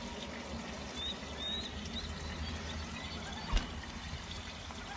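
Water trickling and lapping at a fishing boat, with a few faint high bird chirps and a single sharp knock about three and a half seconds in.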